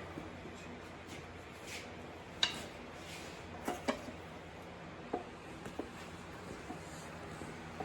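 Scattered metallic clinks and knocks of hand tools, bolts and chain being handled during tractor transmission teardown, a few sharp ones spaced about a second apart, over a steady low shop hum.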